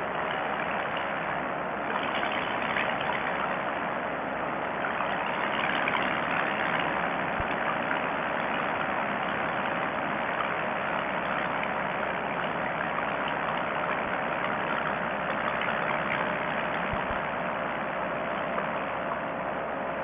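Two-stroke paramotor engine running steadily in flight, an unbroken drone with a few steady tones and no change in throttle.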